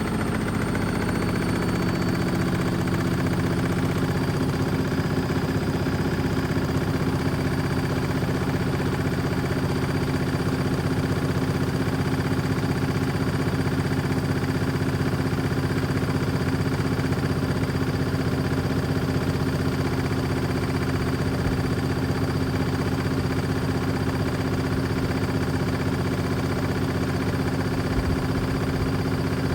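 Beko washing machine spinning an empty drum at a steady high speed: a constant motor hum with a thin high whine that climbs slightly and settles about two seconds in.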